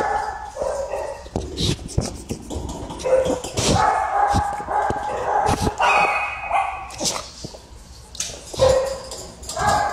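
Excited pug whining and yipping: several drawn-out pitched whines with short yips between them, mixed with scattered sharp clicks and knocks.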